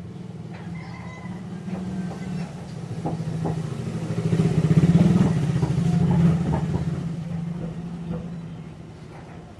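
A passing road vehicle's engine hum, growing louder to a peak about halfway through and then fading away, with a few small clicks of handling over it.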